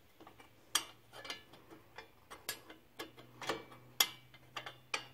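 Irregular metallic clicks and clinks of a combination wrench working a bolt as a wheel hub is fastened to a steering spindle, about fifteen sharp ticks at uneven intervals.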